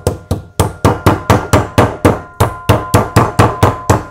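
Meat mallet pounding raw, wet cutlets in quick, even blows, about five a second with a brief break about half a second in: schnitzels being tenderized and flattened.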